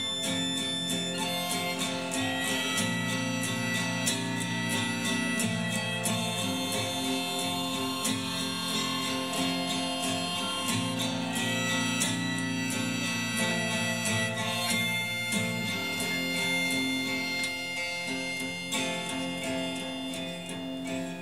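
Harmonica playing held notes over a strummed acoustic guitar in an instrumental passage with no singing. The playing gets a little quieter near the end.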